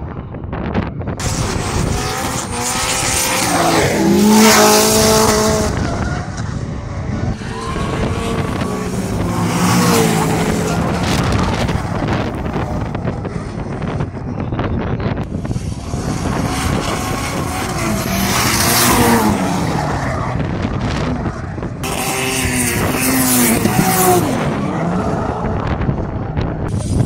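Drift cars sliding sideways at full throttle, their engines revving hard and swinging up and down in pitch over the screech of spinning tyres. The sound comes in several loud bouts, as each car or pair sweeps through the corner.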